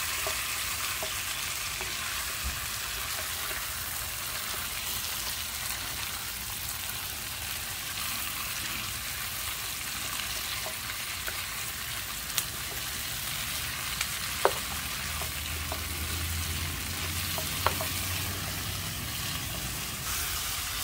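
Chunks of boiled cassava (yuca) frying in oil and butter in a nonstick frying pan: a steady sizzle, with a wooden spatula stirring them and a few sharp taps of the spatula against the pan.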